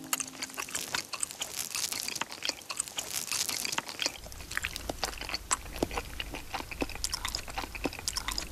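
Close-miked ASMR chewing of chewy Korean rice cakes in spicy tteokbokki sauce: wet, sticky mouth sounds with many small clicks and smacks, going on to fish cake near the end.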